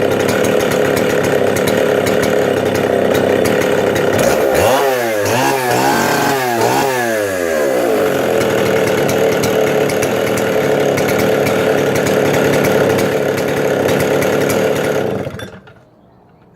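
Stihl 07S 75cc two-stroke chainsaw engine idling smoothly, revved up and down three times about five seconds in, then settling back to idle before it is switched off and dies away near the end.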